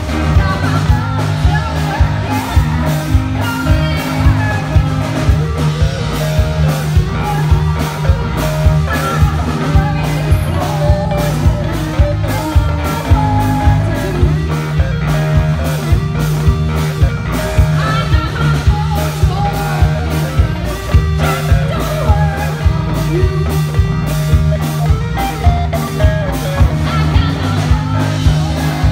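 Live rock band playing a song with a steady drum beat: a female lead vocalist singing over electric guitars, bass guitar, drums and keyboard.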